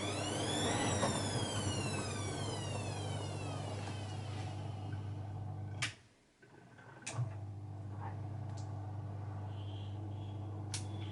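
Bosch Maxx WFL 248Y washing machine: the drum motor whines up in pitch for about a second, then winds down over a few seconds. A sharp click cuts the sound off briefly, another click follows and a steady low hum comes back, with a couple more clicks near the end.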